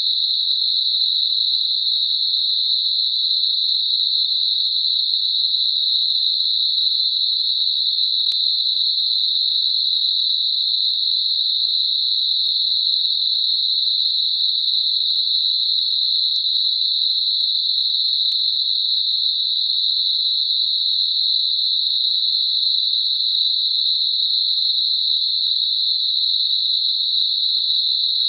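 Synthetic Gaussian narrow-band noise centred at 4 kHz, a steady high hiss held in a narrow band with no low end and no change in level, made as a masker for high-pitched tinnitus.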